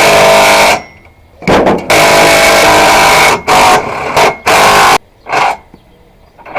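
Power tool run in loud, buzzy bursts that start and stop sharply as the trigger is pulled and released, about six times, the longest about a second and a half.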